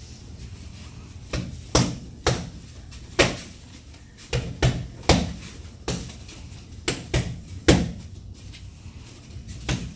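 Punches smacking into handheld focus mitts: about a dozen sharp slaps at an uneven pace, often in quick pairs as jab-cross combinations are thrown.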